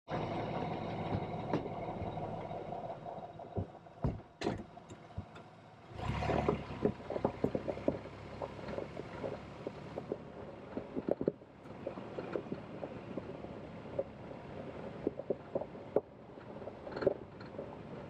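Vehicle climbing slowly on a gravel road: the engine hums steadily while the tyres crunch the gravel, with many small stones clicking and popping under them.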